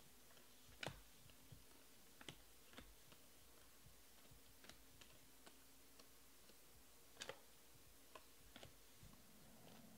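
Faint, irregular clicks and taps of glossy baseball trading cards being slid off a stack and dropped onto a table, about half a dozen of them. The loudest come about a second in and about seven seconds in.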